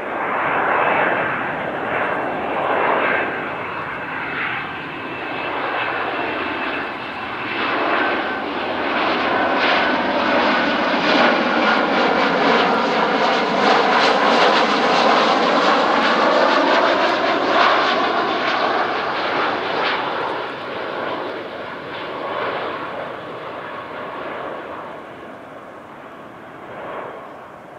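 Boeing 737-300 airliner's CFM56 turbofan engines on landing approach, flying past overhead. The jet noise swells to its loudest about midway, with a faint whine and a shifting, phasing sweep, then fades as the aircraft moves away.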